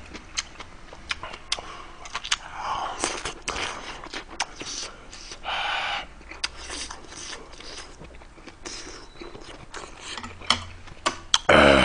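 A person chewing a hot mouthful of food close to the microphone, with many small wet mouth clicks and smacks. A short breathy exhale comes about halfway through, and a loud vocal sound begins right at the end.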